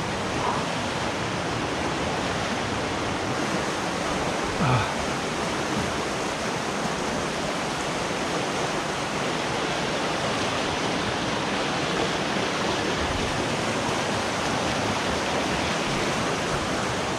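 Steady rush of the Folly River's fast water, running high after the hurricane's rain.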